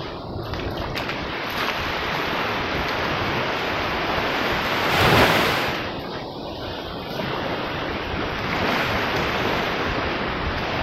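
Small waves washing onto a sandy beach, with wind buffeting the microphone; the noise rises to a louder rush about halfway through.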